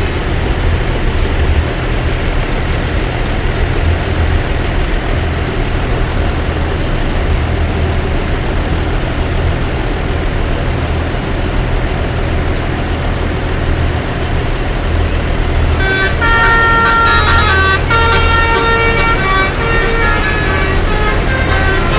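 A large vehicle's engine running steadily. About sixteen seconds in, a bus telolet horn starts: a multi-note musical air horn playing a tune of stepped notes that changes pitch.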